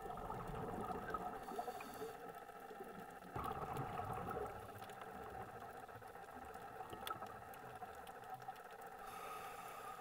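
Underwater ambience: two bursts of bubbling gurgle, one at the start and one about three and a half seconds in, over a steady low hum with scattered faint clicks.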